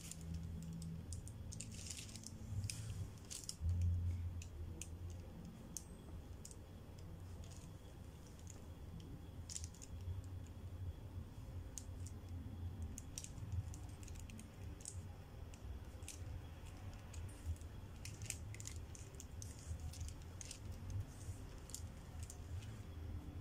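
Pencil tracing over tracing paper: faint, irregular scratches and light ticks of the point on the paper, with a low steady hum underneath.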